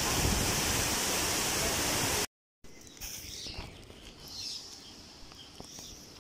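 Loud steady rush of turbulent water in the river below a dam's sluice gates, which cuts off abruptly a little over two seconds in. After it comes much quieter outdoor air with a few faint high bird chirps.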